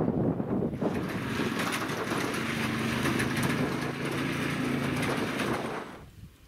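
Side-by-side utility vehicle driving on a wet, stony track, its engine running steadily with tyre noise. Wind buffets the microphone for the first second or so, and the vehicle sound cuts off about six seconds in.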